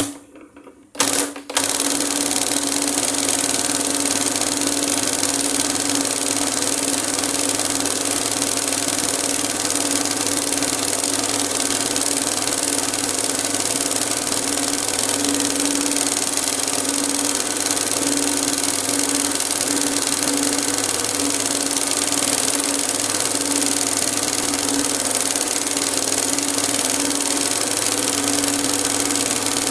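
Industrial embroidery sewing machine stitching cord onto fabric. It starts in two short bursts within the first second and a half, then runs steadily at speed without a pause, with a constant hum under the needle noise.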